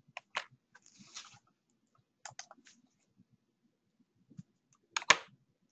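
Faint scattered clicks and taps of a computer keyboard and mouse, picked up by a headset or desk microphone while the presentation slides are advanced. The loudest click comes about five seconds in.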